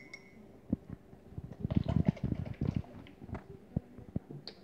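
A quick run of knocks, taps and rubbing from painting things being handled, densest in the middle, with a few single clicks before and after.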